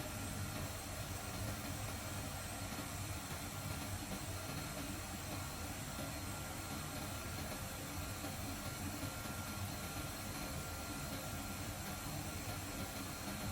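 CNC vibrating-knife gasket cutting machine running: a steady low hum with even hiss and a thin, faint high whine.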